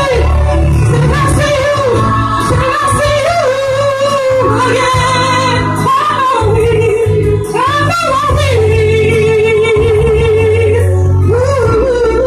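A woman singing live into a microphone, holding long notes with vibrato, over instrumental accompaniment with a deep bass line.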